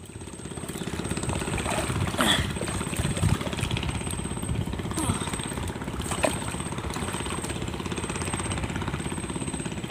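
An engine running steadily, fading in during the first second, with a few short sharp sounds over it.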